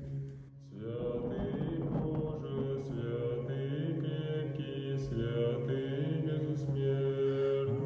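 Orthodox liturgical chanting: voices singing over a steady, low held note. The melody above moves syllable by syllable. The upper voices break off briefly and begin a new phrase just under a second in.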